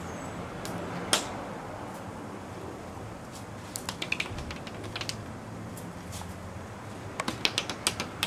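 Irregular sharp clicks over a low steady hum: one loud click about a second in, a cluster of them around four to five seconds in, and a quick run of clicks near the end.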